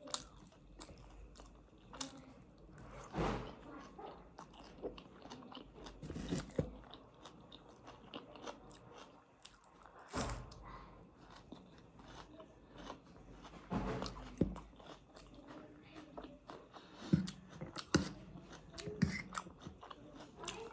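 Close-up eating sounds: a person chewing and biting into a meal of spicy instant noodles and pork, with irregular moist smacks and a few louder crunchy bites.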